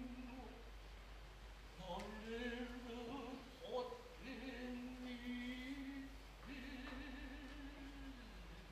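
Noh chanting (utai) by a low male voice: long, slowly wavering held notes that rise and fall gradually, with short breaks between phrases.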